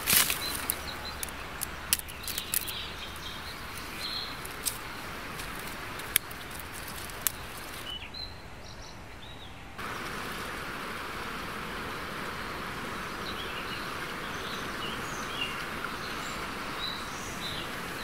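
Outdoor ambience with small birds chirping. Scattered sharp clicks and snaps come through the first several seconds. About ten seconds in, the background switches to a steady, even rush with bird calls over it.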